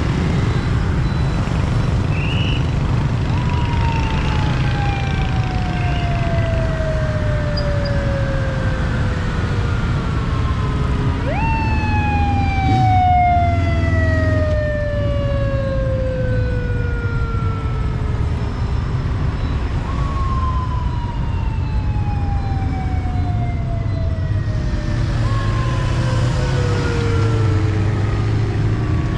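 Police escort sirens wailing, several overlapping: each tone jumps up quickly, then falls slowly over about eight seconds before jumping up again. Under them is the steady drone of heavy motorbike and car traffic.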